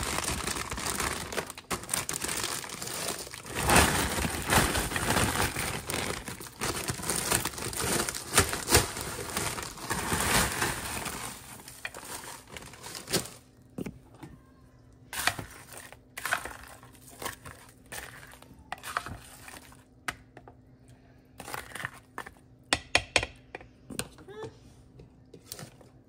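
Plastic bag of frozen broccoli florets crinkling and rustling as the florets are shaken out into a slow cooker, dense for about the first twelve seconds. Then quieter scattered clicks and knocks as the pot is stirred.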